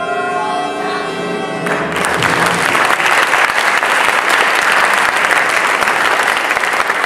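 Held musical notes end under two seconds in, and a theatre audience breaks into steady applause.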